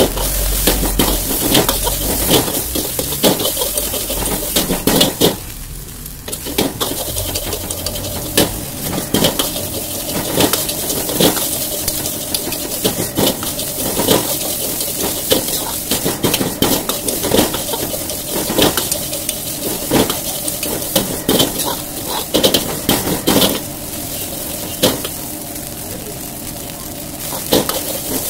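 Stainless steel ladle scraping and knocking against a wok in a quick, irregular rhythm as fried rice with egg is stirred, over a steady sizzle of the rice frying.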